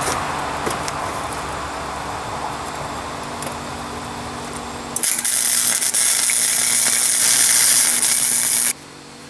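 Harbor Freight 90-amp flux-core wire welder laying a bead: a steady hum for about five seconds, then the arc strikes and crackles and sizzles loudly for about four seconds before cutting off suddenly when the trigger is released.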